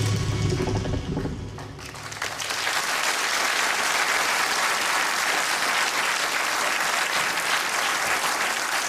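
The end of the show's opening theme music fades out in the first two seconds, then a studio audience applauds steadily.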